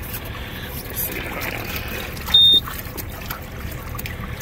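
Water trickling and sloshing in a boat's livewell holding a tautog. About two seconds in, one short high-pitched electronic beep, louder than the water.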